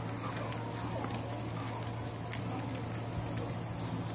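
Charcoal fire under skewers of chicken tikka crackling, with scattered sharp pops and clicks over a steady low hum.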